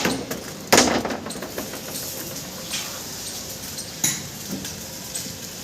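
Scattered knocks and clanks over a faint steady background, the loudest a sharp knock just under a second in, with another about four seconds in.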